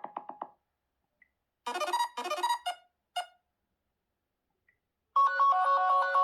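Sony Xperia 1 IV ringtones playing one after another. A quickly repeating pulsed tone fades out at the start, and a short keyboard-like phrase plays about two seconds in. After a gap, another ringtone with sustained melodic notes starts about five seconds in.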